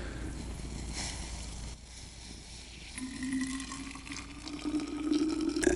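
Water being poured into a thermos. About three seconds in, a hollow tone starts and rises steadily in pitch as the flask fills.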